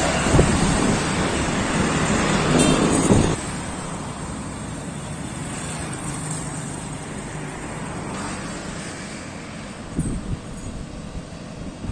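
Road traffic noise with wind on the microphone: louder for the first three seconds, then dropping suddenly to a quieter steady hum of passing traffic.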